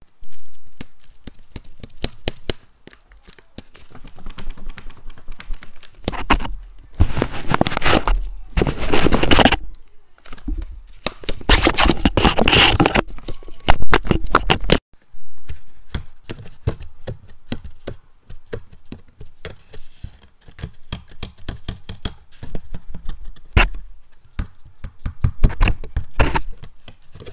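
Paper dragon puppets worked against a microphone: rapid clicks and scraping of paper, with two louder stretches of crunching, rustling paper in the middle.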